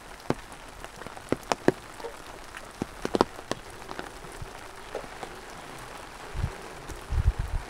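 Steady rain with single drops striking close by as sharp, irregular taps, the loudest about halfway through. A few low thumps near the end.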